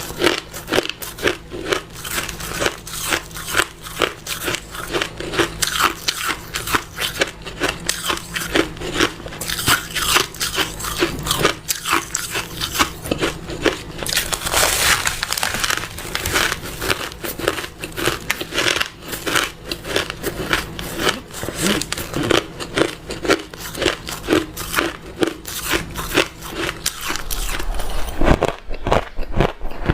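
A person biting and chewing crunchy ice: rapid, dense crunching, several crunches a second, with a thicker stretch of crunching about halfway through.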